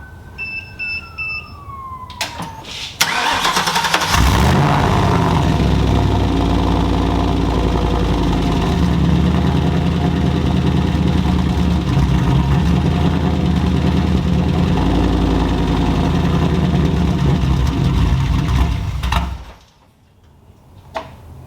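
Turbocharged 4.6L 2V V8 of a Ford Mustang Bullitt, run off a jump pack, cranking about 3 seconds in and catching a second later. It runs steadily for about 15 seconds, then is shut off. The owner says the engine has rod knock.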